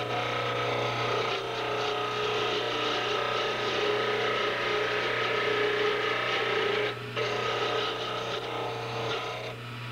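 Mini wood lathe running with a hand-held turning tool cutting a spinning wooden pen blank: a steady scraping cut over the lathe motor's hum, with a brief break in the cut about seven seconds in.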